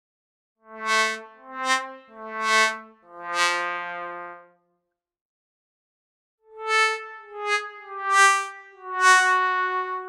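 Sad trombone 'wah-wah-wah-waaah' failure gag, played twice as two four-note phrases. Each phrase ends on a long, lower final note, and the second phrase is pitched higher than the first.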